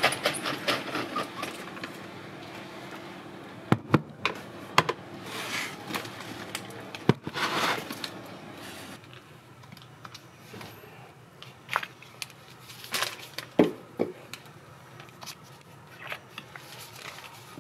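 Scattered handling noises: a few sharp knocks and clicks with short rustles and scrapes as a black plastic bucket is carried and gardening things are moved about.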